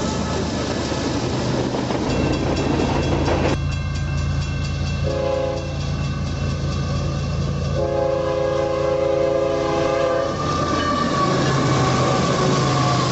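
Rumble of a passing freight train that cuts off abruptly about three and a half seconds in. Then a diesel freight locomotive's multi-tone air horn gives a short blast and a longer one over the steady drone of its engine.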